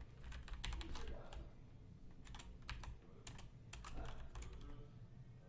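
Computer keyboard typing: quiet, irregular key clicks.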